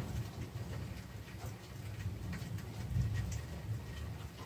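Low, uneven rumble of distant thunder that swells briefly about three seconds in, with faint scattered ticks over it.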